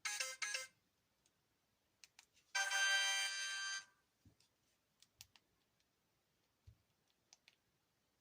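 Sony Ericsson K508i mobile phone playing its built-in message alert sounds: two quick electronic beeps at the start, then about two seconds later a single held electronic tone lasting just over a second. Faint clicks follow.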